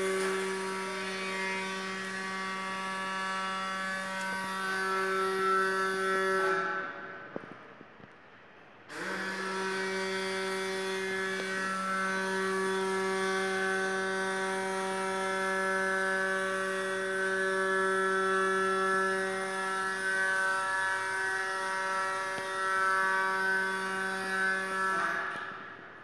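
Steady whine of an electric motor running at constant speed. It cuts off about seven seconds in, spins back up about two seconds later and runs until it stops near the end.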